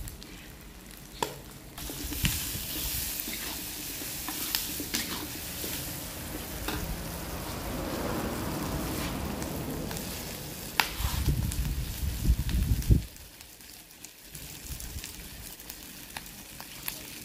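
Spiced mutton, whole shallots and eggplant sizzling in a wok while a metal spatula stirs and scrapes them, clicking against the pan, as the shallots and eggplant soften. About eleven seconds in there is a louder stretch of heavy low knocking for a couple of seconds, and after it the sizzle is quieter.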